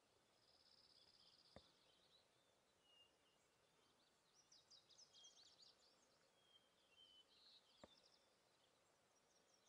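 Near silence, with faint, high-pitched bird chirps and short trills scattered throughout, and two faint clicks, one about a second and a half in and one near the eighth second.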